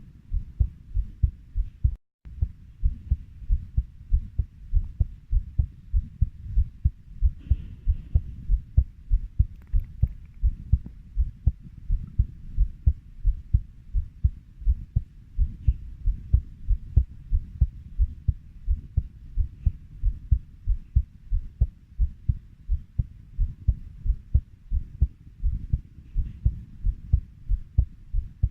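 Heartbeat at 90 beats a minute: a steady run of low double thumps (lub-dub), about three a second. The sound cuts out for a moment about two seconds in.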